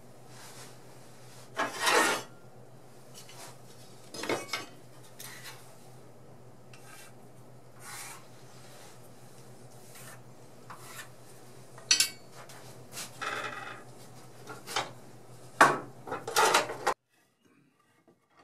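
Wooden boards being handled on a metal table saw top: wood sliding and scraping across the table, with scattered knocks and clicks, over a steady low hum. Everything cuts off abruptly near the end.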